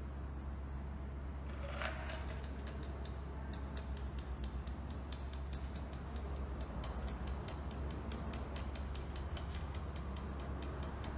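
Fast light ticking, about four or five clicks a second with a stronger click near the start, while a cocktail is double-strained from a metal shaker through a fine-mesh strainer into a glass, over a steady low hum.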